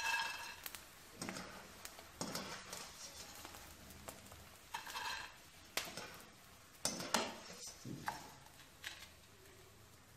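Wire-mesh spider strainer scraping and clinking against a metal kadhai while fried gond puffs are scooped out of ghee, in about eight irregular scrapes and taps.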